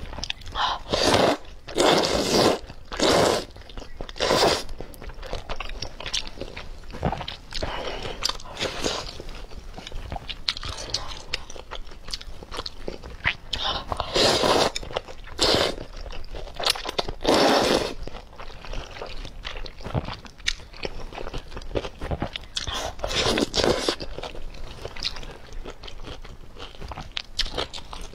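Close-up eating sounds of noodles in soup taken with chopsticks: several loud slurps, grouped near the start, in the middle and later on, with chewing and small mouth noises between them.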